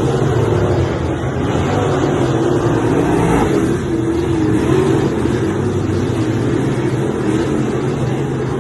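Racing car engine running, a steady loud drone whose pitch wavers slightly.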